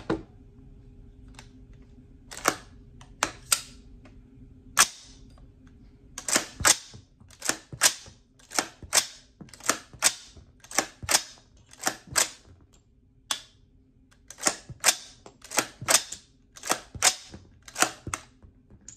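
A .350 Legend AR-15's action being cycled by hand, live rounds feeding from the magazine, chambering and ejecting one after another: sharp metallic clacks, a few single ones at first, then mostly in close pairs about once a second. Each round feeds cleanly, with no hang-ups.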